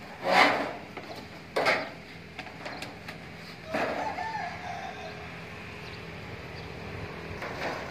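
Two brief loud sounds in the first two seconds, then a rooster crows once, a wavering call of about a second and a half near the middle.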